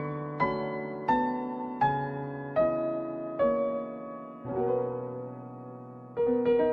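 Slow, gentle solo piano music: notes and chords struck about every three-quarters of a second, each ringing and fading, then a longer held chord before a new one near the end.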